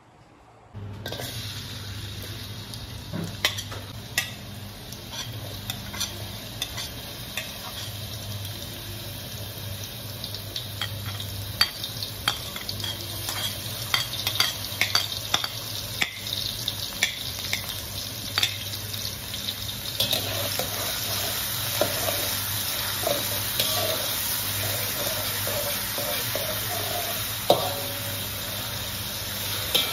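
Chopped garlic, shallots, lemongrass and tomato sizzling in hot oil in a wok. A slotted spatula stirs them, clicking and scraping against the pan. The sizzle starts suddenly about a second in and gets louder over time, over a steady low hum.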